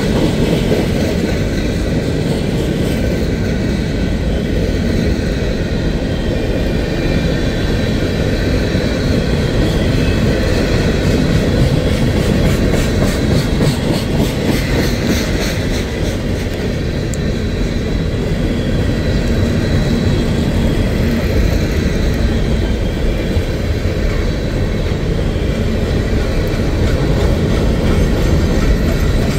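Covered hopper cars of a CSX freight train rolling past: a steady, loud rumble of steel wheels on rail.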